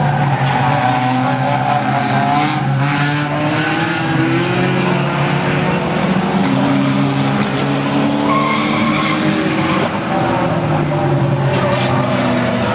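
Engines of several banger racing cars running and revving together, their pitches rising and falling against one another, with tyres skidding on the track.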